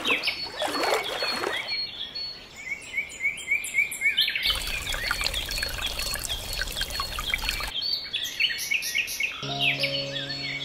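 Water splashing as a miniature metal bucket is dipped into a small pool, then water pouring from the bucket into a small tin pot for about three seconds, with birds chirping throughout. Music notes come in near the end.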